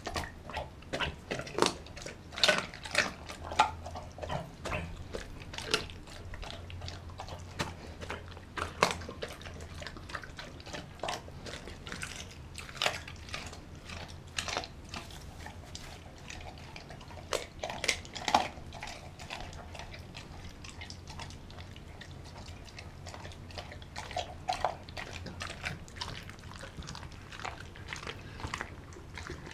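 A Doberman biting and chewing raw meat: irregular crunches and sharp clicks, most frequent in the first few seconds and again around the middle, thinning out later.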